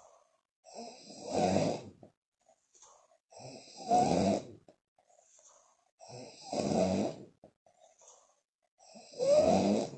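A woman snoring loudly in deep sleep, four snores about every two and a half to three seconds, with faint puffs of air through the lips between them.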